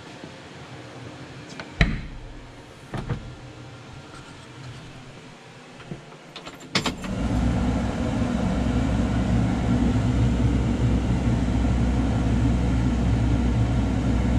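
Kioti DK5310 tractor's diesel engine starting about halfway through and settling into a steady idle, heard from inside the cab. Before it, a few sharp knocks and clunks.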